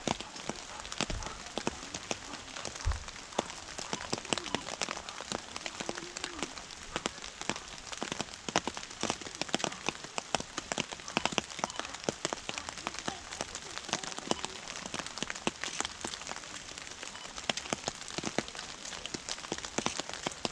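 Rain falling, with many separate drops landing close to the microphone as dense, irregular sharp ticks over a steady hiss. A couple of low bumps in the first three seconds.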